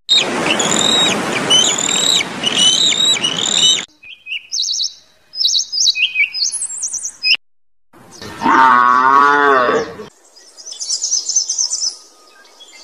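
A run of short animal sounds: about four seconds of harsh, noisy calling with a repeated high note, then scattered bird chirps, then a cow mooing once for about two seconds, then more high bird chirping near the end.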